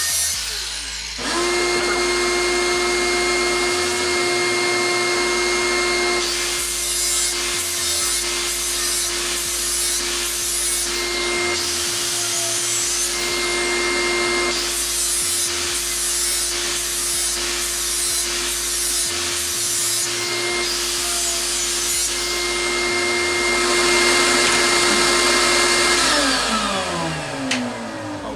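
Angle grinder starting up and running steadily while grinding the cutting edge of a lawn mower blade in repeated passes, the grinding noise swelling with each pass. Near the end the motor is switched off and winds down with a falling pitch.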